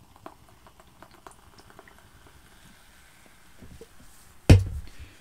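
Carbonated energy drink fizzing in a glass just after being poured from a can: a faint crackle of bubbles with small ticks. About four and a half seconds in there is a single loud thump.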